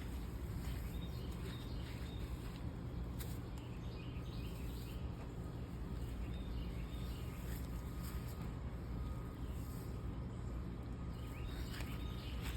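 Outdoor ambience: a steady low rumble, with faint, short bird chirps scattered through it.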